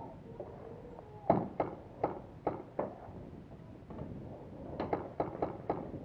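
Paintball marker shots, each a sharp pop. Five come about a third of a second apart starting about a second in, the first the loudest, then a quicker string of about five follows near the end.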